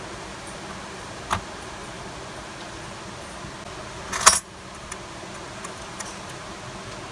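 Metal parts of a CPU socket being handled: a light metallic click, then one short, louder metallic clatter about four seconds in, over a steady hiss.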